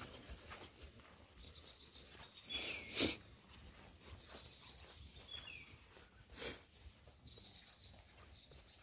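Wild birds calling in forest: short falling whistles and quick trilled notes, faint over a light outdoor hiss. Two brief louder noises cut through, about three seconds in and again past six seconds.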